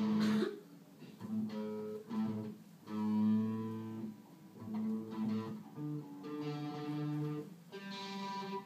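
Electric guitar playing a slow line of single held notes, each ringing for about half a second to a second before the next.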